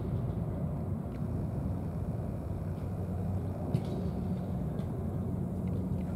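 Steady low rumble with a constant hum, like a motor running, and a few faint short clicks.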